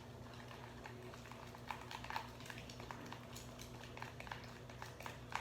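Faint, irregular sticky clicks and crackles of slime being stirred and worked in a pot, over a low steady hum.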